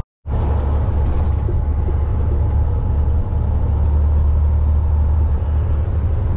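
Steady low drone of a semi-truck's diesel engine with road noise, heard inside the cab of the tractor running bobtail without a trailer. The sound cuts out for a moment at the very start.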